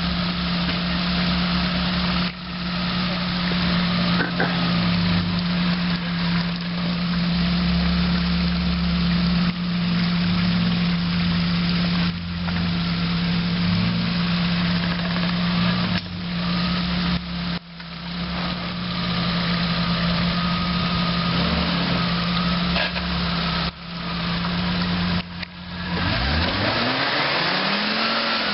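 Engine of a stuck 4x4 held at high revs, with short lifts off the throttle every few seconds; near the end the revs rise and fall several times.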